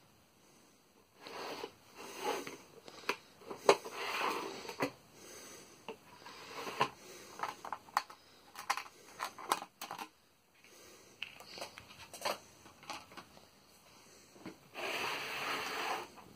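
Plastic case of a Ryobi drill and driver bit kit being unlatched, opened and handled: irregular sharp plastic clicks and knocks mixed with short scraping rustles, with a run of quick clicks as the bits in their plastic holders are touched, and a longer rustling scrape near the end.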